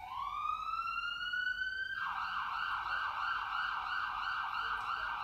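Emergency vehicle siren: a slow rising wail for about two seconds, then it switches to a fast up-and-down warble.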